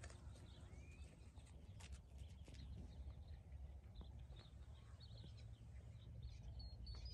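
Near silence: faint open-air background with a steady low rumble and a few faint, short chirps.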